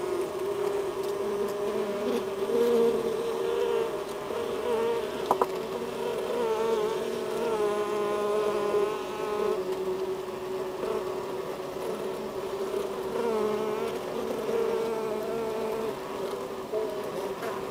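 Honeybees buzzing inside the hive, close to the microphone: a dense, steady hum, with the buzzes of single bees rising above it now and then. A sharp click sounds about five seconds in.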